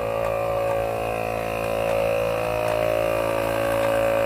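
Portable air compressor running steadily as it pumps up a low van tire, a constant motor hum with a held tone.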